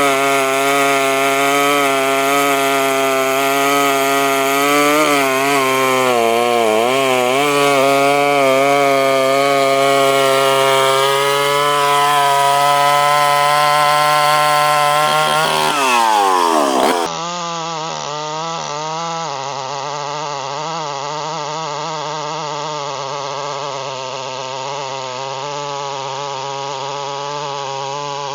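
Chainsaw running at high revs while cutting wood, its pitch dipping briefly now and then under load. About sixteen seconds in the revs fall sharply, then the sound cuts to another chainsaw running steadily, a little quieter.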